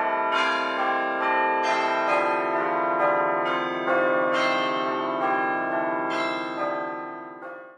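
Bells ringing, a run of overlapping strikes whose tones ring on into one another, then fading and cutting off suddenly near the end.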